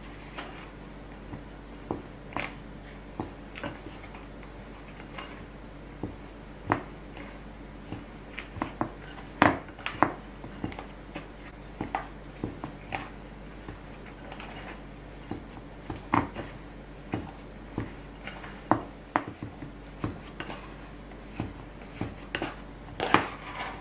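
Pink silicone scraper and hands knocking and scraping against a glass mixing bowl while shaggy bagel dough is mixed: irregular sharp clicks, one or two a second, over a faint steady hum.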